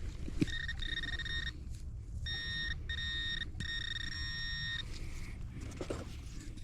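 Metal detector tone: a steady high-pitched beep sounding in four bursts of about half a second to a second each as the target is located in the hole, over a low wind rumble on the microphone.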